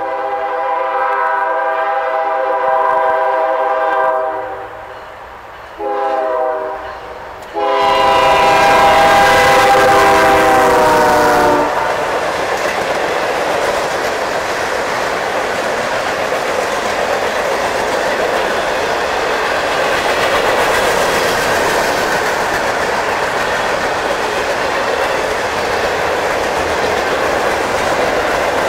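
Locomotive air horn sounding several tones together: a long blast, a short one, then a long blast that drops in pitch as the train comes by. A loud train then rolls past close by, its wheels running steadily on the rails.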